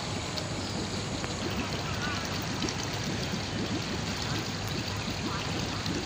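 Water in a koi pond splashing and trickling steadily, like a small stream running into it.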